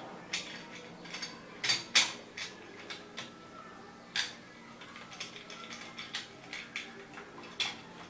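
Irregular clicks, light knocks and scrapes of a screwdriver against a plastic wall light switch as its mounting screw is backed out and the switch is worked loose from the box. The loudest knocks come about two seconds in.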